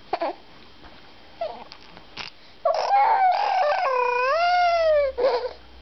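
A high-pitched vocal wail: a few short squeaks, then one long drawn-out call lasting over two seconds that swoops down and up in pitch before trailing off.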